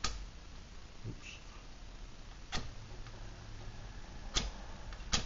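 Four short, sharp clicks a second or two apart as small objects are handled on a workbench.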